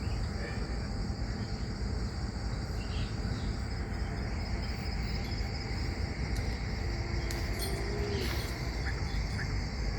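Steady high-pitched chirring of crickets over a constant low rumble.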